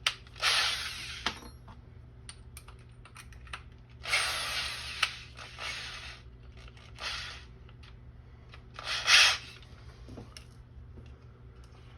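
Power drill with a step bit cutting a hole in a thin plastic container, run in four short bursts with the last, near the end, the loudest, and small clicks and knocks between bursts.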